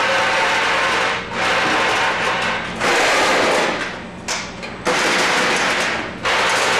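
Tridyne F-206 packaging machine running: a dense mechanical clatter over a steady low hum. It drops away briefly about a second in, for most of a second around four seconds in, and once more near the end, each time starting up again abruptly.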